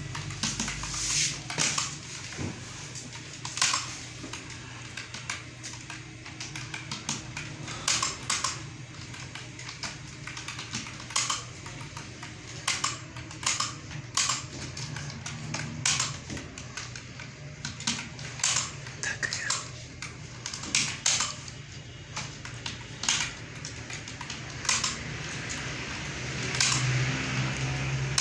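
Computer keyboard being typed on in slow, uneven clusters of key clicks with pauses between them, over a steady low hum.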